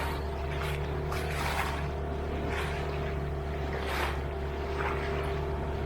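Boat motor running steadily with a constant low hum, with irregular rushing splashes of water against the hull about once or twice a second.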